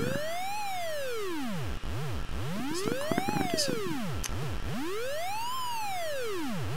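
Synthesized siren moan from a software emulation of the Texas Instruments SN76477 sound-effects chip, set to the Remco sound effects machine's 'French police siren moan' patch. A buzzy electronic tone slides slowly up and back down, about once every two and a half seconds.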